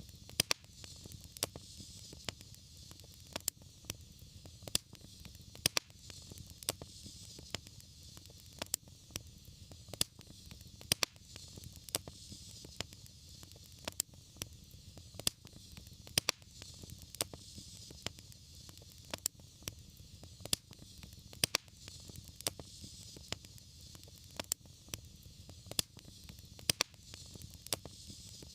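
Wood fire burning in a fireplace: irregular sharp crackles and pops, several a second, over a steady low rumble of flame and hiss.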